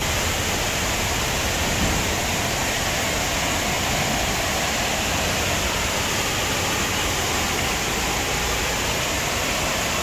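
A large waterfall's steady roar of rushing, falling water.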